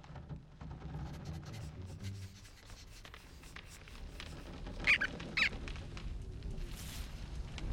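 Two short high squeaks about half a second apart, some five seconds in, over a soft low rumble.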